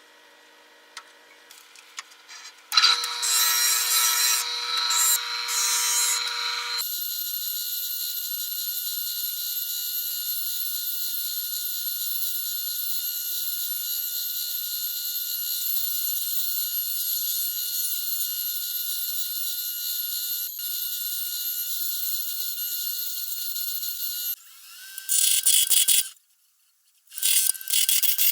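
Woodworking power tool running with a steady high whine over a hiss, starting about three seconds in and settling to an even sound after a few seconds. It changes near the end, cuts out briefly, then starts again.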